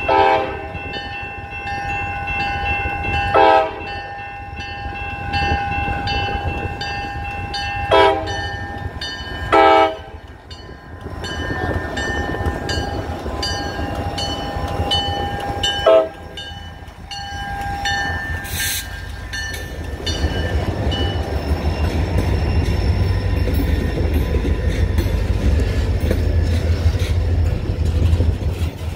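Freight train at a grade crossing: the lead diesel locomotive's horn sounds several short blasts, at the start and again about 3, 8, 10 and 16 seconds in, over the crossing bell ringing rapidly. In the second half the locomotives are past and the boxcars roll by with a steady low rumble and clattering wheels on the rail joints.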